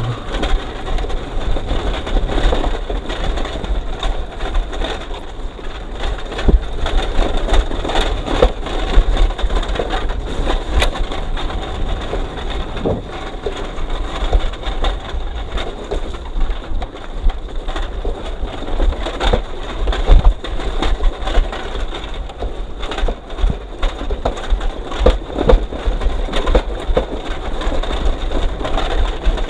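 Continuous irregular crunching and clattering over a steady low rumble, the rough 'şakır şukur' rattle of travelling over a rough, leaf-strewn track.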